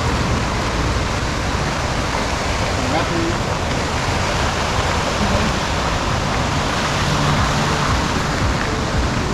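Steady rushing of a fast mountain river, a constant even roar of water.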